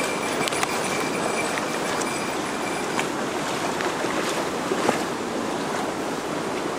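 Mountain stream rushing over rocks, a steady even rush of water, with a few faint clicks.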